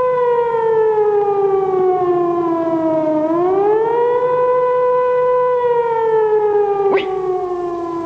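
Civil defence siren wailing: one loud tone that sinks slowly in pitch, swoops back up about three seconds in, then sinks again. It is the 'Attention everyone!' public alert signal.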